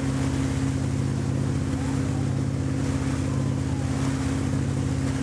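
Towing motorboat's engine running steadily at speed, a constant low drone, over the rush of water and wind buffeting the microphone.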